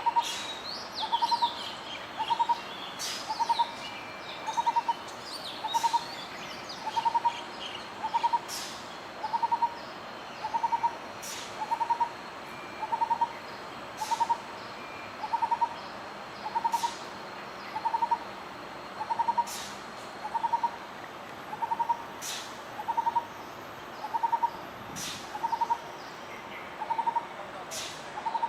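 Lineated barbet calling: a short, low, rapid multi-note phrase repeated at a steady pace, about once every 1.2 seconds. Other small birds chirp faintly above it near the start, and a few sharp clicks come through.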